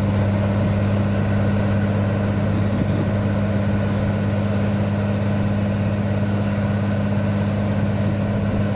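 Paddy harvester engine running loud and steady at a constant speed, with a deep even hum.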